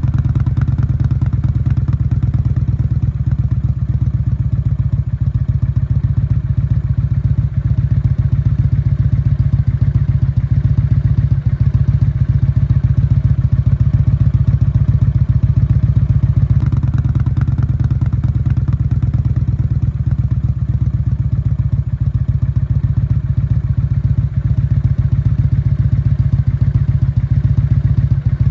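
Kawasaki Vulcan 900 Classic's V-twin engine idling steadily through Delkevic 550mm bull-nose slip-on mufflers, a deep rapid rumble of exhaust pulses.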